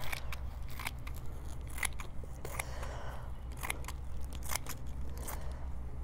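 Trauma shears cutting through a thin cotton T-shirt: a string of crisp snips, roughly one a second, as the blades close on the fabric.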